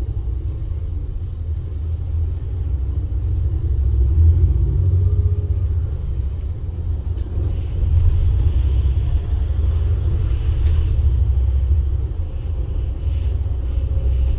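Volvo B8RLE city bus's six-cylinder diesel engine and road noise heard inside the cabin while driving, a steady low rumble.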